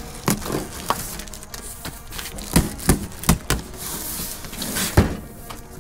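Large cardboard box being handled and slid across a pickup's tailgate: a string of knocks and scrapes, with the loudest thump about five seconds in.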